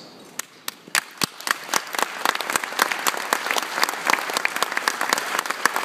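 Audience applauding: a few scattered claps about half a second in quickly swell into full, steady applause. Some loud, sharp claps come from hands right beside the microphone.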